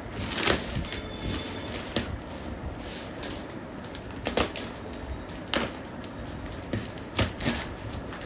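A parcel being unpacked by hand: rustling packaging with irregular sharp clicks and knocks as the parts inside are handled.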